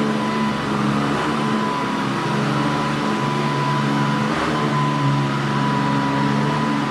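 Hoover Decade 800 Heavy Duty upright vacuum cleaner running loudly on carpet: a steady high whine over a lower hum that wavers slightly as it is moved.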